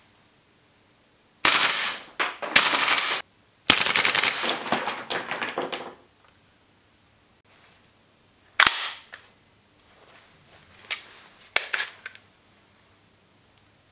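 WE MSK gas blowback airsoft rifle firing rapid automatic bursts, its bolt cycling with a sharp clatter: two long runs of shots in the first half. Later a single sharp click and a few lighter clicks as the rifle and magazine are handled.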